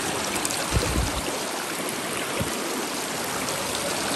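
River water rushing through a sluice box over miner's moss and riffles, a steady splashing flow with the box set on a steeper drop. A couple of short low thumps come about a second in and again near two and a half seconds.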